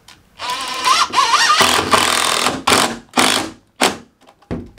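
Cordless impact driver driving a screw into a door jamb, running for about three seconds with its pitch wavering as the trigger is worked, then two short bursts near the end as the screw is set.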